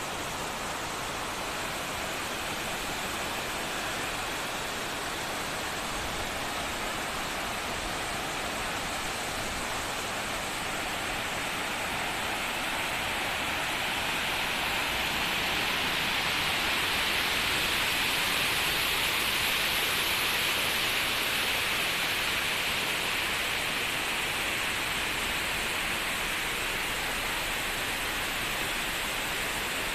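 Steady rush of water cascading down a terraced rock waterfall, growing a little louder about halfway through and then easing back.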